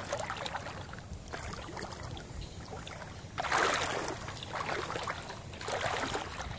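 Shallow floodwater sloshing and splashing, with two louder surges of splashing about three and a half and five and a half seconds in.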